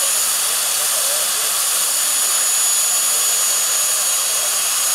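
Model helicopter gas turbine running on the ground with a steady high-pitched whine over a strong hiss; the main rotor is not yet turning, so there is no blade chop.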